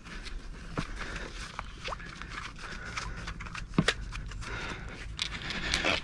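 Water splashing around a hooked wels catfish thrashing at the surface beside a float tube, with scattered sharp clicks and knocks from handling the rod and line, the loudest about four seconds in.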